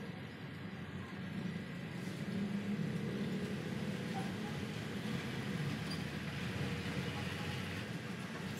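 Heavy hand-spun potter's wheel turning with a steady low rumble, a little louder from about two seconds in.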